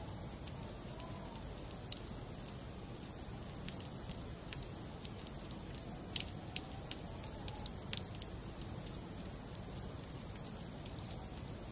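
Wood fire burning in a fireplace: a steady low rumble of flames under frequent sharp crackles and pops from the logs, the loudest pops between about six and eight seconds in. A faint wavering whistle comes and goes.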